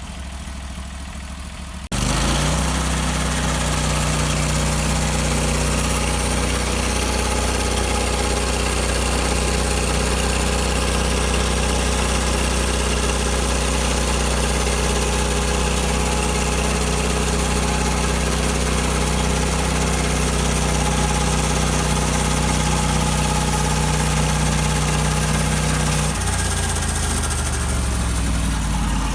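Norwood bandsaw mill's gas engine idling, then throttled up suddenly about two seconds in and running steady and loud with the band blade sawing through a log, before winding back down near the end.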